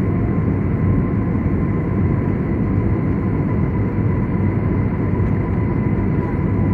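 Steady cabin noise of a jet airliner on its approach to land, a low rumble of engines and airflow heard from a window seat, with a thin steady whine above it.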